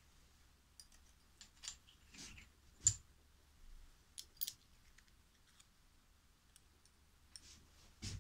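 Scattered light clicks and taps from small steel packing shims being handled around a lathe's four-way tool post. The loudest is a single sharp tap about three seconds in.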